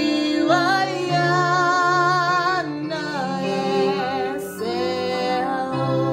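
A woman singing a slow worship song, holding long notes with a wide vibrato, over sustained instrumental backing.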